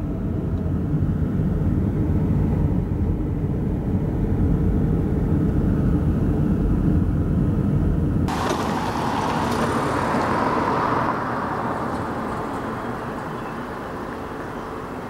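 Steady low road and engine rumble heard from inside a moving car. About eight seconds in it cuts off abruptly and gives way to a lighter, hissier noise that slowly fades.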